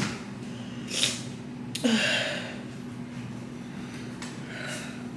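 A few short sniffs and breaths from a woman with a stuffy nose from a cold. There is a brief hissy one about a second in, a louder one around two seconds in, and a faint one near the end.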